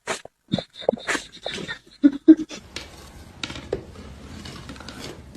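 A dog making a quick run of short sounds with a brief whine about two seconds in.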